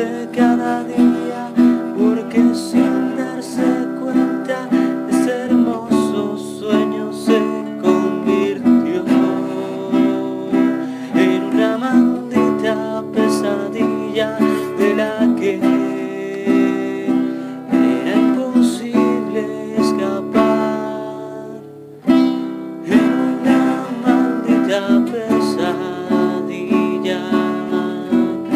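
Instrumental music: a plucked acoustic string instrument playing a fingerpicked, note-by-note melody, with a short pause about three quarters of the way through before it picks up again.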